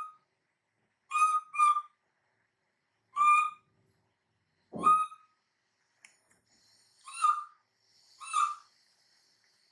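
Baby macaque giving short, high, whistle-like coo calls, about seven in all, a second or two apart with two in a quick pair: the plaintive calls an infant monkey makes when it wants its mother.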